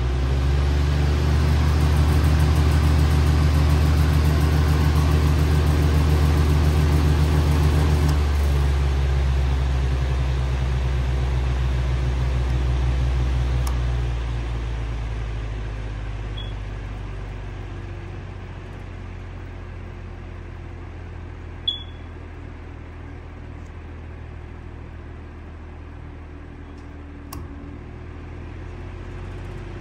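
Motor of a Patton U2-1487 high-velocity air circulator fan running just after start-up: a loud low hum with a rush of moving air. The sound shifts about 8 seconds in, then fades from about 14 seconds and settles at a lower, steadier level; a single sharp click sounds about two-thirds of the way through.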